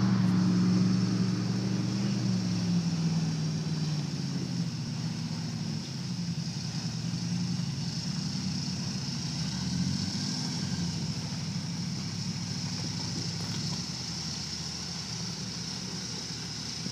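Rock crawler's engine running at low revs as the buggy crawls up a rock ledge, louder in the first few seconds and then settling to a steadier, lower note.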